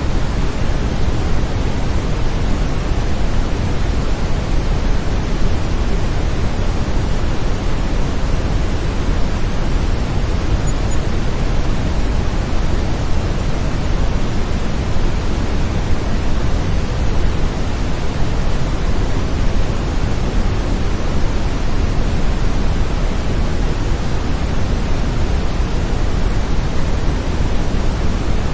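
Steady brown noise: an even, deep rushing hiss, strongest in the low end, with no change throughout.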